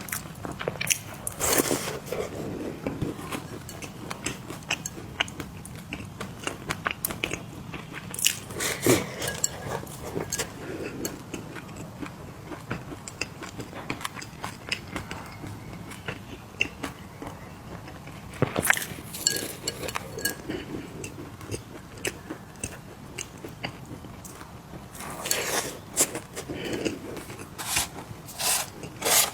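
Close-miked crunching and chewing of mini cookies: bursts of loud crunches every several seconds, with softer chewing clicks in between.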